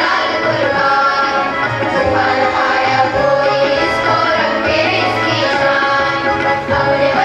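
Music with drums and sustained melodic tones.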